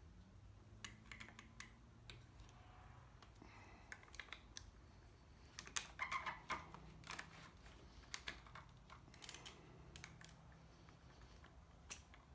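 Faint scattered clicks and taps of throttle cable ends and twist-grip housing parts being handled and fitted by hand, with a louder run of clicks about six seconds in.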